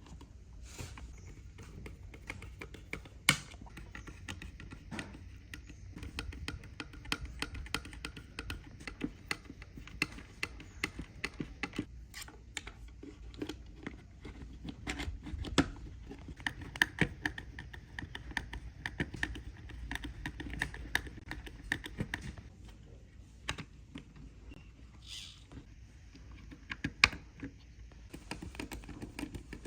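Irregular light clicks and taps, like small hand tools or parts being handled, over a low steady hum, with a few sharper knocks.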